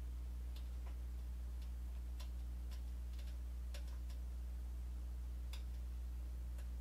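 Faint, irregular light clicks of hand tools and parts being worked on a motorcycle's front fork, over a steady low hum.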